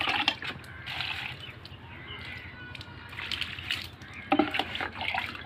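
Water splashing and trickling onto potted plants as they are watered, coming and going in uneven bursts.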